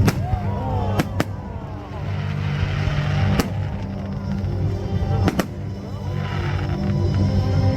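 Aerial fireworks bursting, with about six sharp bangs (two close together about a second in and another pair about five seconds in) and a crackling hiss between them. Music with a steady bass plays underneath.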